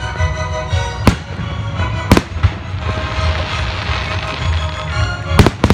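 Aerial firework shells bursting with sharp bangs: one about a second in, another at about two seconds, and a quick pair near the end. Music plays underneath.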